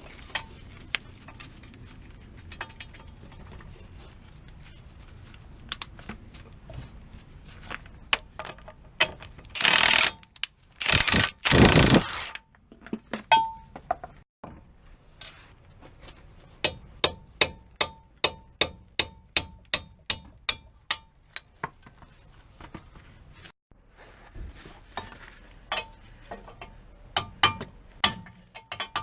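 Hand tools at work on a car: a ratchet clicking in a long, even run of sharp single clicks, about two to three a second. About ten seconds in there are two loud bursts of rushing noise.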